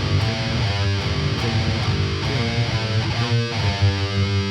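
Heavily distorted electric guitar, an Aristides, playing a low, fast single-note metal riff with one short bend about two seconds in.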